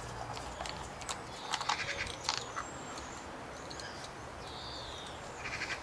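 Light metal clicks and taps as a screwdriver and gloved hands work the power valve (KIPS) cover and linkage on a Kawasaki KDX200 two-stroke cylinder, mostly in the first half. A faint high animal call comes near the end.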